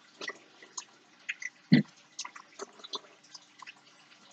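Hands wrapping thread around a paper clip earring close to the microphone: scattered small clicks and ticks, with one louder knock about two seconds in.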